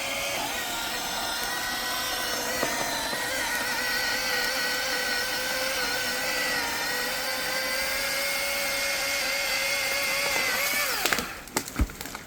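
Power drill running steadily for about eleven seconds, drilling a hole in the bridge timber. Near the end its pitch falls as the motor winds down, followed by a couple of sharp knocks.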